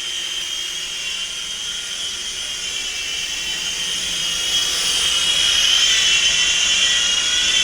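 Syma S52H toy RC helicopter in flight: its small brushed electric motors and twin rotors give a steady high whine that grows louder as it comes closer.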